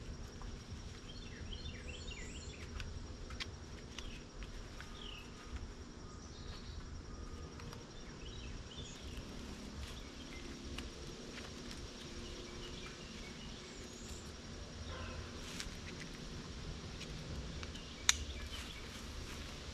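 Webbing straps and buckles of a hunter's safety harness being put on and adjusted, with light rustling and scattered small clicks, and one sharp click near the end as the chest buckle snaps shut. Insects buzz steadily and birds chirp now and then in the woods behind.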